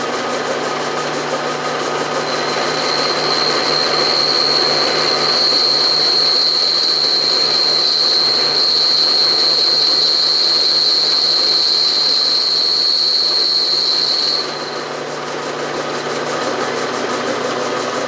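Milling machine running while its milling cutter takes a light finishing climb-milling pass in cold-rolled steel. A steady high-pitched whine from the cut starts about two seconds in and stops about fourteen seconds in, when the cut ends; the machine keeps running.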